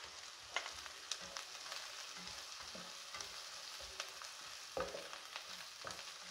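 Chopped onions, cumin and chili flakes sizzling faintly in hot oil in a non-stick frying pan while a spatula stirs them, with scattered light scrapes against the pan and a soft knock near the end.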